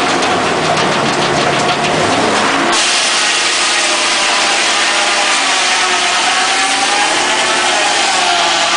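Homemade circular sawmill running loud, its big circular blade spinning under power. About three seconds in, the blade bites into a log and the sound turns into a dense, hissing cutting noise with a ringing whine that wavers slightly in pitch as the cut goes on.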